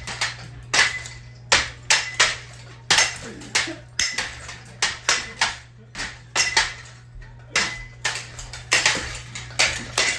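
A ceiling fan being beaten, metal clanking and rattling with each blow, about two to three irregular strikes a second, over a steady low hum.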